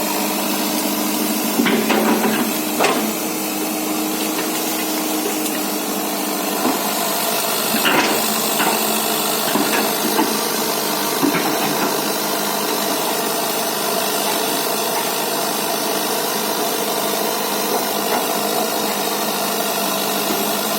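Excavator's diesel engine running steadily, with a few short knocks in the first half.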